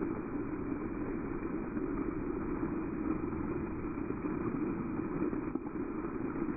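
Water jets of a dancing fountain falling back into the pool, a steady rushing splash.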